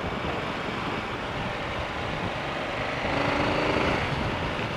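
Motorcycle on the move: steady wind and road noise on the microphone, with the engine note coming up more clearly for about a second, three seconds in.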